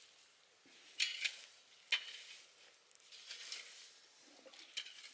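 A feed bucket being handled: three sharp knocks in the first two seconds, then rustling, scraping noises from the feed in it.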